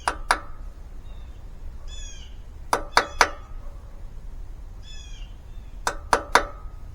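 Hammer tapping a punch into the aluminium block of a small mower engine, peening metal in around a loose steel valve seat so it will hold; the sharp metallic taps come in three quick groups of two or three. A bird chirps twice between the groups.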